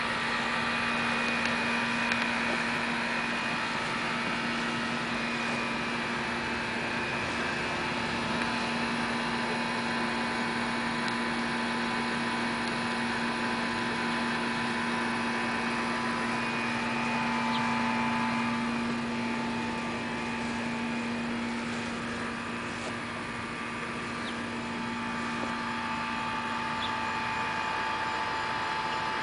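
A steady machine hum with several even tones over a constant hiss, unchanging throughout.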